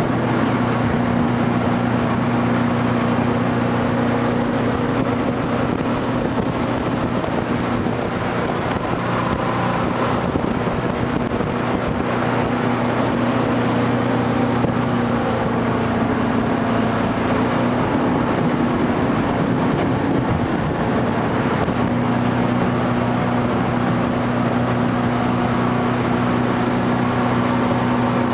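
Jet boat running at speed on a river: a steady engine drone over rushing water and wind. Midway the engine note wavers and gives way to mostly water and wind rush for several seconds, then comes back steady.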